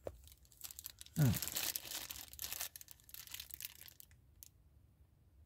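Plastic bag crinkling as it is handled, in short irregular rustles through the first three seconds or so. A man makes a brief murmur about a second in.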